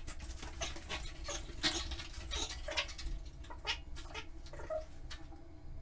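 A dog and its handler in a small tiled room, with the sound running at four times normal speed: a quick run of clicks and taps mixed with short squeaky chirps.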